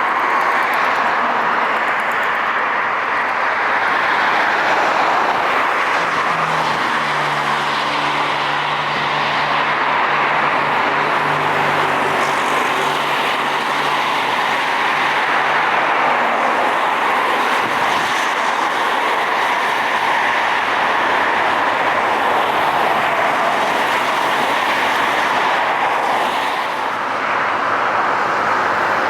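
Steady roar of jet airliner engines during takeoff, with a low hum joining about six seconds in and fading out about ten seconds later.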